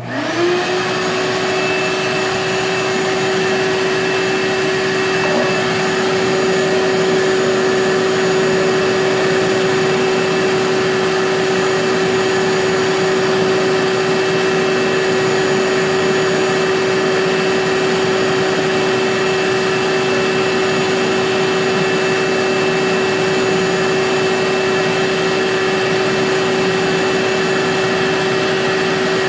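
Shop vac switched on: its motor spins up within about half a second, then runs steadily with a constant whine and airflow rush through the dust collection hose.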